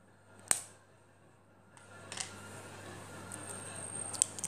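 A hen's egg being cracked on the rim of a glass mixing bowl: one sharp crack about half a second in, then a few fainter clicks of the shell breaking open near the end.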